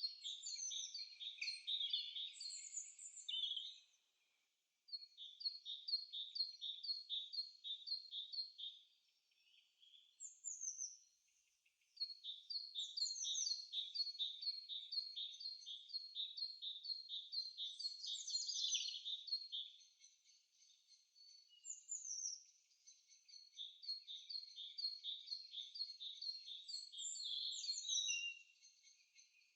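Birdsong: rapid series of repeated high chirping notes with occasional higher down-slurred notes, sung in several long phrases broken by short pauses.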